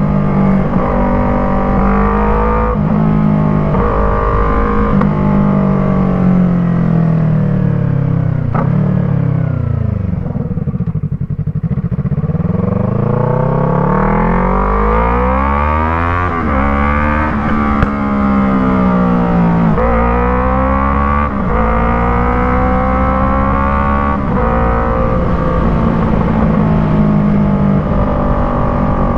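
Yamaha MT-03 parallel-twin engine under way through an Arashi aftermarket exhaust fitted with a dB killer. The revs rise and fall with gear changes, sink low for a few seconds about a third of the way in, then climb hard again. There is one sharp pop a little past the middle.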